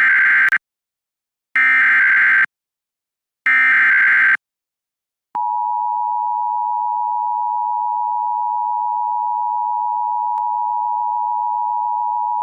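Emergency Alert System SAME header: three short bursts of warbling digital data, then about five seconds in the steady two-tone EAS attention signal starts and holds, announcing a severe thunderstorm warning.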